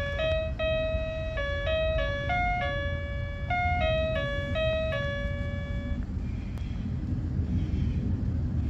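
A simple electronic jingle of clear, stepping notes plays a short repeating tune and stops about six seconds in. A steady low rumble runs underneath.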